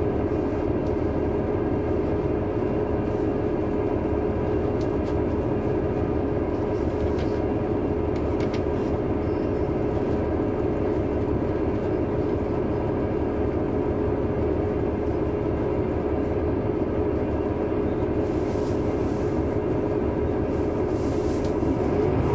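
Caterpillar C9 ACERT diesel engine of a 2003 Neoplan AN459 articulated transit bus, heard on board, running steadily with an even hum. At the very end the engine note starts to rise as it revs up.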